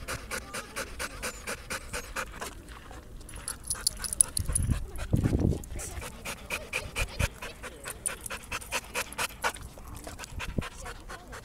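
Pit bull-type dog panting hard and fast, about four to five breaths a second, worn out after exercise. A brief louder low-pitched sound comes about five seconds in.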